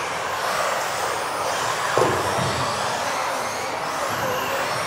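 Several electric RC offroad race cars running at speed, their high-pitched motor whines rising and falling over a steady hiss of tyres on the hall floor. A single thud about two seconds in.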